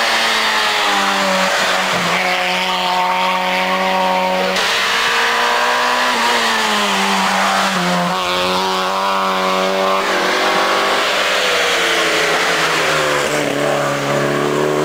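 Rally cars' engines running hard at high revs, the pitch dropping and climbing again through gear changes and braking. The sound jumps abruptly from one car to the next a few times.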